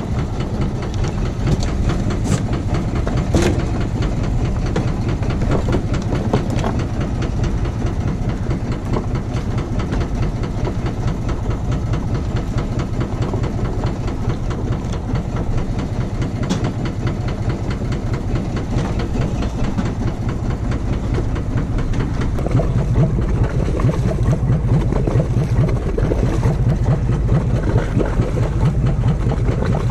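Boat engine running steadily with a rapid even clatter, a little louder over the last several seconds.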